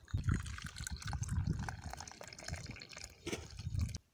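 Hot milk tea poured from a metal pot through a plastic strainer into a cup, splashing and dripping; it cuts off just before the end.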